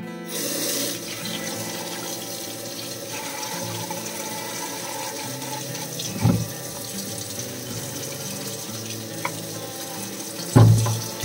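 Tap water running steadily into a stainless steel sink over cucumbers being rinsed by hand. Two dull thumps break in, one about six seconds in and a louder one near the end.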